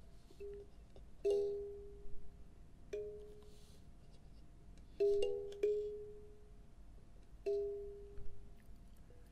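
A slow, sparse instrumental intro: about six single notes struck or plucked on a small tuned instrument, each ringing out and fading over a second or so, with two close together about halfway through.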